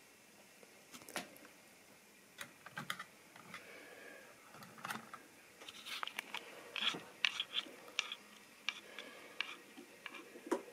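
Irregular small clicks and light taps, busiest about six to eight seconds in.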